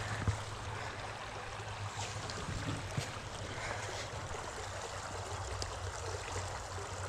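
Creek water running steadily, with a couple of faint clicks.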